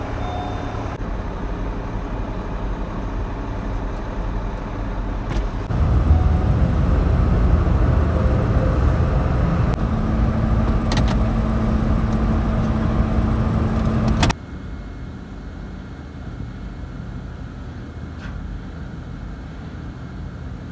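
Motor vehicle running, a steady low rumble that gets louder about six seconds in, then cuts off abruptly to a quieter rumble about fourteen seconds in.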